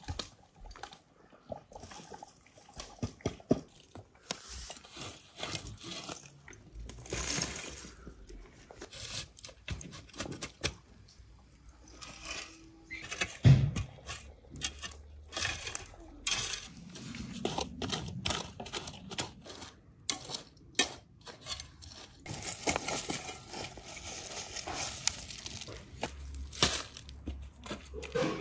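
Shovel scraping and digging through ash, charcoal and earth in a fire pit, with gritty scrapes and small stones and embers clattering, and one heavier thump about halfway through.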